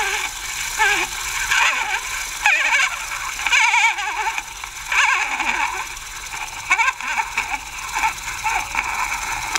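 Tinny, high-pitched recorded voice from a vintage talking doll's wind-up miniature record-player voice box, wavering in pitch over a steady surface hiss. It cuts off abruptly at the end.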